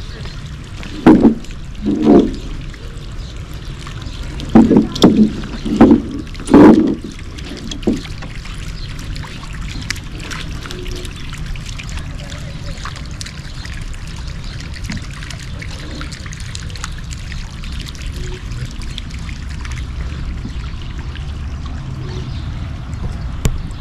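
Steady trickle of water from the fountain jets in a long garden pool. In the first few seconds it is broken by six loud, short, low sounds: two about a second apart, then four in quick succession.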